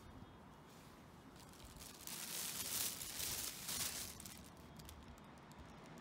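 Rustling and crinkling as a gloved hand handles the motorcycle's rear drive chain and sprocket. It is loudest for about two seconds in the middle.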